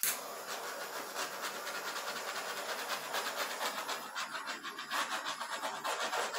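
Continuous quick rubbing and scraping of a painting tool working fluid paint, a little louder toward the end.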